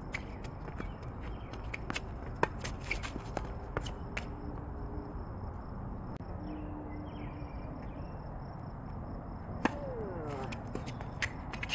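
Tennis balls being hit by rackets and bouncing on a hard court: scattered sharp pops, the loudest about two and a half seconds in and again near ten seconds, over a steady background hiss.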